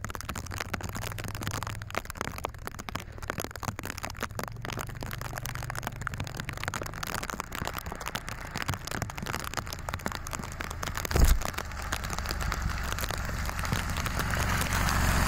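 Side-by-side UTV's engine running low and steady under a dense crackle, with one short thump about eleven seconds in, the sound growing louder near the end.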